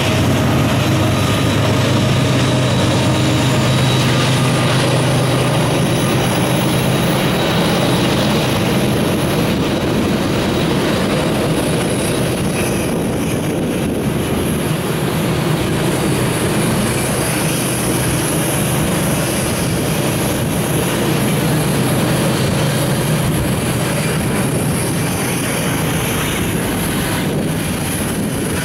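Canadian Pacific freight train passing: the diesel locomotive's steady engine drone over the first several seconds fades away, leaving the even rumble of covered hopper cars rolling over the rails.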